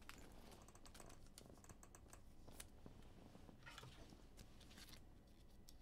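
Near silence with faint, scattered light clicks and taps from trading cards and their plastic sleeves being handled.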